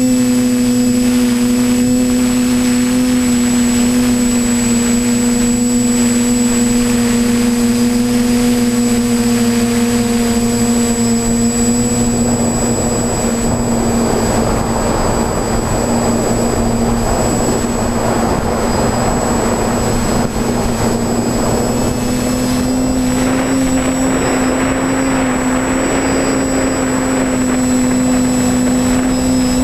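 TBS Discovery Pro quadcopter's electric motors and propellers running steadily in flight, a steady whine heard from the camera on board. A rushing noise grows louder about halfway through.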